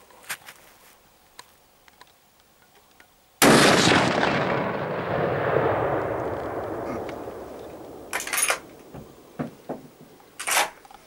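A single loud gunshot about three and a half seconds in, its echo rolling on and fading for about four seconds; two short noises follow near the end.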